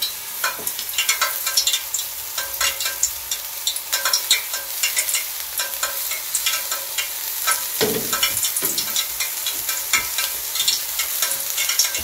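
Shredded-potato pancake frying in oil in a nonstick frying pan over a gas burner: a steady sizzle with a constant crackle of small pops.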